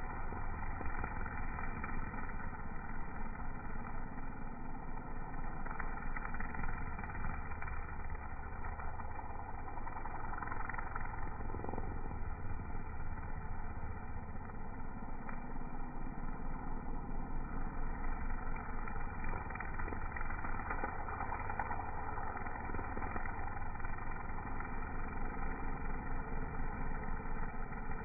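String trimmer (weed whacker) running steadily as it cuts grass on a ditch bank.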